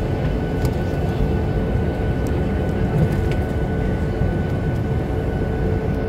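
Steady cabin noise inside a Boeing 737-800 as it taxis: a deep engine rumble with a steady whine above it, and a few faint clicks.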